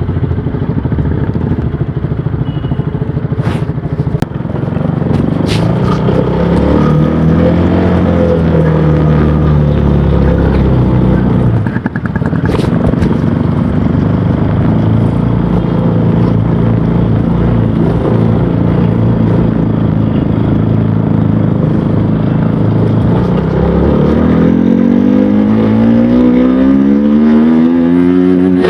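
KTM Duke 200's single-cylinder engine running through its exhaust, the pitch wavering up and down, then climbing steadily over the last few seconds as it revs up. A few sharp clicks sound in the first half.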